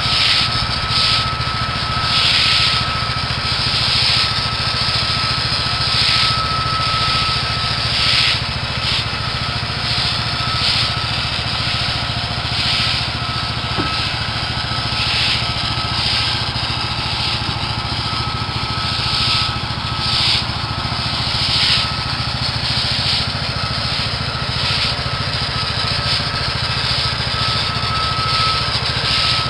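Small gas engine of a pressure washer running steadily, with the hiss of its water spray surging and easing every second or two.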